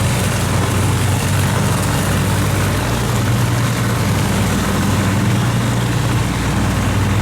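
Large river cargo boat's diesel engine running hard under heavy throttle, a loud, steady low drone.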